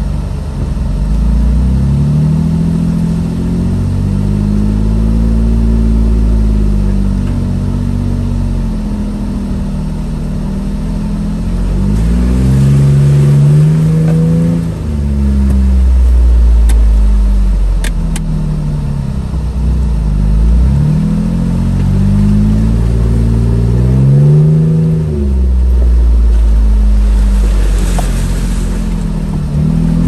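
Jeep Wrangler engine revving up and falling back again and again as it works over off-road terrain, its pitch climbing and dropping every few seconds.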